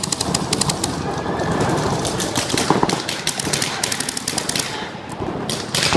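Paintball markers firing in rapid strings of sharp pops, densest about the first second, again around the middle and once more near the end.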